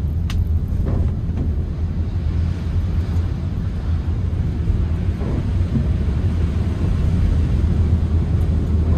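Steady low road and engine drone inside a moving Toyota Calya's cabin, with one sharp click shortly after the start.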